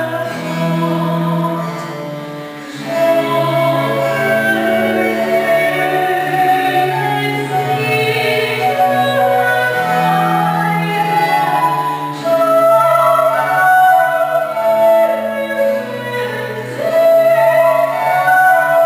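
Soprano singing Baroque music with a small chamber ensemble of violin, harpsichord and a bowed bass string instrument, the voice sustaining long notes over the accompaniment.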